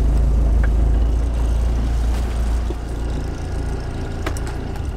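Sailboat's inboard diesel engine running with a steady low drone that eases down as it is throttled back to idle, then stops at the very end, shut down so the boat can sail. A single click comes shortly before it stops.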